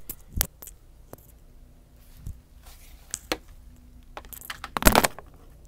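Handling noise from a phone camera being moved about: scattered light clicks and knocks, with a louder rustling clatter near the end. No engine is running.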